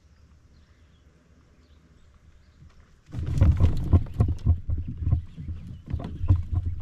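A hooked largemouth bass thrashing at the surface close to the kayak. About three seconds in, a sudden run of splashing and irregular knocks begins and keeps going as the fish is fought.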